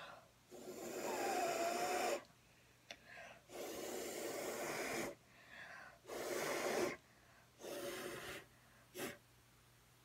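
A person blowing hard through pursed lips onto wet acrylic pour paint to push it across the canvas. There are five blows with pauses for breath: the first two last about a second and a half, the next two are shorter, and the last is a brief puff. A faint whistle sounds in the first blow.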